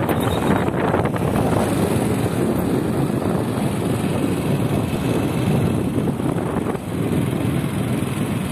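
Wind buffeting a phone's microphone: a steady, loud rumble with no engine tone in it, with a few handling clicks in the first second.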